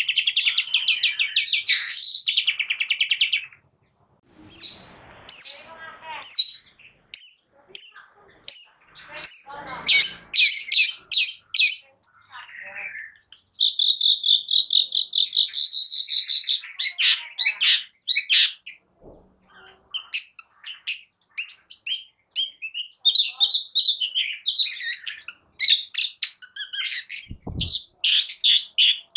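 Long-tailed shrike (cendet) singing a fast, varied song of chirps, trills and rapid runs of repeated notes, full of mimicked calls, broken by short pauses.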